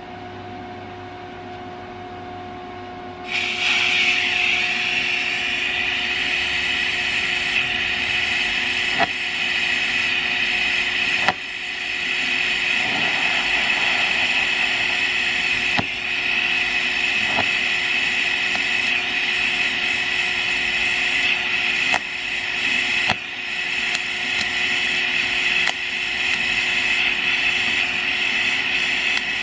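DC TIG welding arc from a torch run on a MIG welder's DC TIG setting: a steady hum, then the arc strikes suddenly about three seconds in and holds a steady hissing buzz while a bead is run with filler rod. A few short crackles and brief dips break it along the way.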